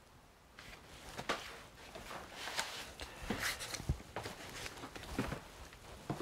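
Footsteps of a man walking behind a shop counter, with irregular rustling and light knocks from handling a paper sheet and records.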